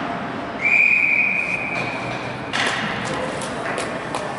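Ice-hockey referee's whistle: one long, steady, high blast of about two seconds, stopping play. It is followed by a few sharp knocks over arena background noise.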